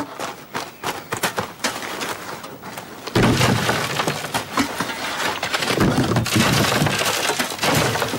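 Shovelfuls of earth and stones thrown down into an open grave: at first scattered knocks and clatters, then from about three seconds in a much louder, continuous rattle and thud of soil pouring in close by.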